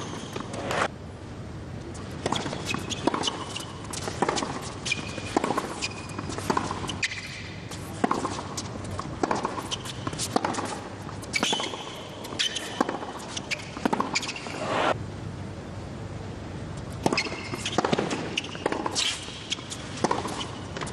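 Tennis rallies on a hard court: sharp racket strikes on the ball and ball bounces about a second apart, in several separate runs over a steady low background of crowd and arena noise.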